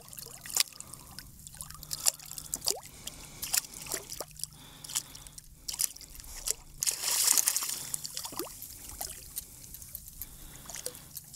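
Water dripping and trickling with small splashes at the side of a kayak, and a louder splash about seven seconds in.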